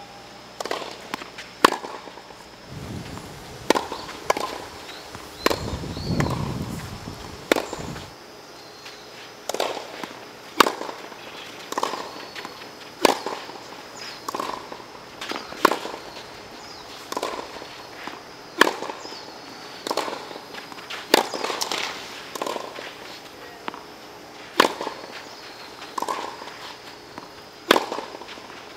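Tennis ball being hit back and forth in a rally: sharp pops of racket strings striking the ball, mixed with the ball bouncing on the hard court, about one every second, sometimes two close together.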